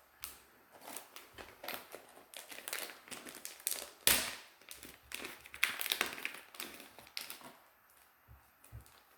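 Small plastic packets crinkling and rustling as they are handled, an irregular run of crackles that dies away about seven and a half seconds in, followed by two light taps.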